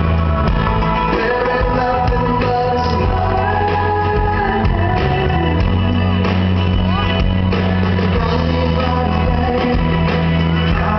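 Live pop-rock band playing through a concert hall's PA: electric and acoustic guitars, bass and drums under a male lead vocal, with the hall's echo.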